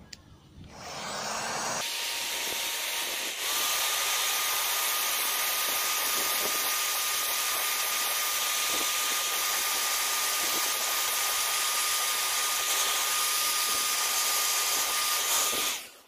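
Parkside heat gun running, its fan blowing a steady hiss with a thin whine in it, heating the plastic bumper to melt and smooth the filler over small holes. It starts about a second in, gets louder a couple of seconds later and cuts off just before the end.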